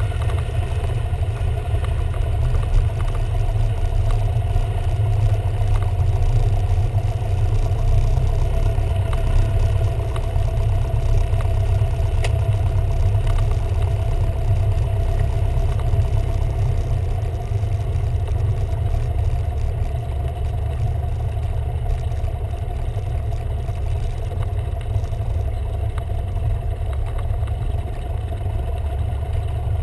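Cessna 172R's four-cylinder Lycoming engine and propeller, throttled back to idle during the landing rollout, heard from inside the cabin: a steady drone that eases slightly about halfway through.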